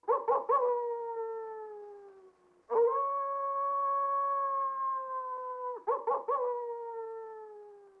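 Coyote howling in three calls. The first and last open with a few quick yips and break into a long howl that slowly sinks in pitch. The middle one is held level for about three seconds, then drops off.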